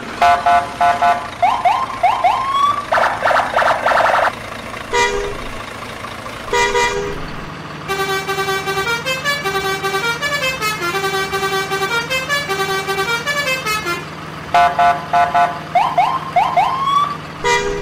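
Electronic horn beeps and rising siren-like whoops, then a short stepping tune of horn-like notes over a steady hum. The beep-and-whoop pattern comes back about 14 seconds in.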